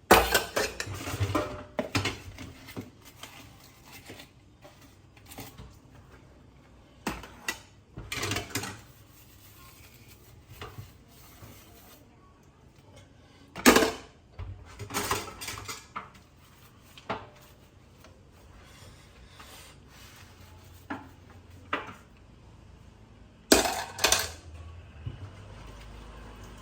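Kitchen dishes and metal utensils clinking and clattering in short, irregular bursts, loudest right at the start, in the middle and again near the end.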